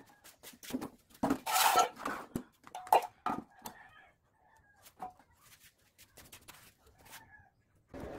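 Knocks and clatter from a tubular steel trike frame being lifted and set down on a bucket, with a man's flip-flop footsteps on a tiled floor. The loudest knocks fall in the first few seconds, then it goes quiet apart from a few faint sounds.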